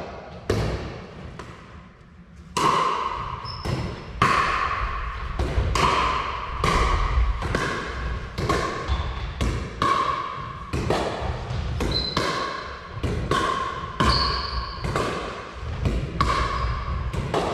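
Pickleball rally: a hollow plastic ball popping off paddles and off the wooden floor. There is one sharp pop near the start, then a short pause, then a steady run of pops about every second from roughly two and a half seconds in, each ringing briefly and echoing in the large hall.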